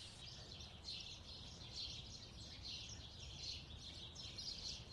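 Faint, continuous chirping of many small birds.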